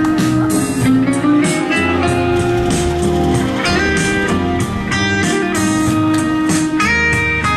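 Guitar music: a stream of plucked notes over a steady bass line.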